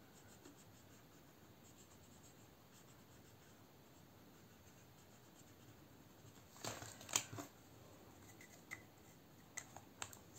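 Marker scratching faintly as it colours in a box on a plastic-sleeved paper chart, mostly very quiet, with a few louder strokes about two-thirds of the way through. A few small clicks come near the end as the marker is handled.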